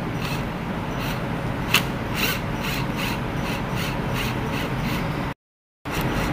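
Cordless drill/driver running as it drives a circuit breaker's terminal screw, a steady motor sound. A sharp click about two seconds in is followed by a run of even clicks, about three a second. Near the end the sound cuts out completely for half a second.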